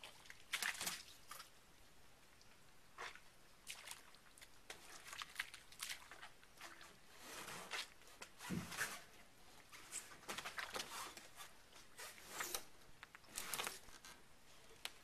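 Faint, irregular squelches and scrapes of someone moving about in soft wet tidal mud beside a boat hull, a dozen or so short sounds at uneven intervals.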